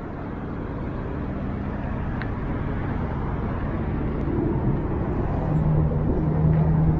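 Steady outdoor traffic noise from road vehicles, with a low engine hum growing louder in the second half.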